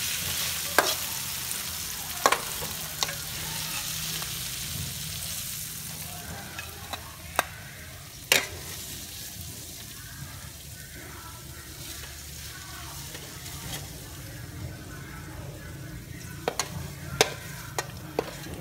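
Pork and ginger sizzling in a metal wok while a metal spatula stirs and scrapes, with sharp clacks where it strikes the pan. The sizzle fades after about six seconds as the food is tipped out onto a plate, and a quick run of scraping clacks comes near the end as the last pieces are scooped from the wok.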